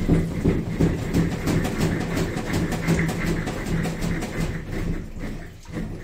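Panasonic NA-F65G7 top-loading washing machine running with a rapid, rattling clatter over a steady motor hum. This is the abnormal noise it is being examined for.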